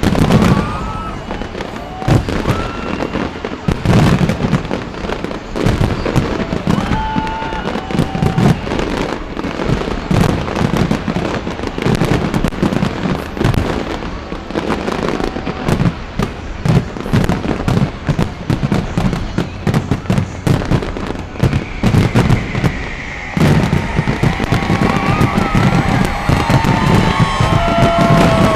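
Large fireworks display: a dense, unbroken run of bangs and crackles, with a brief lull near the end.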